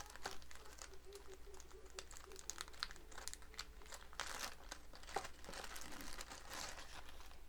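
Packaging being handled: irregular crinkling and rustling as wrapping is unfolded and pulled from the box.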